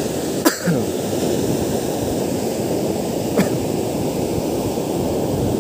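Ocean surf breaking and washing up a sandy beach, a steady wash of noise. Two brief sounds fall quickly in pitch, about half a second in and again a little past three seconds.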